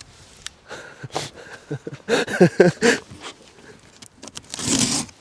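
A parcel being opened close to the microphone: packing tape and cardboard tearing in short rips, the longest rip near the end. Some short squeaky, pitched sounds come in the middle.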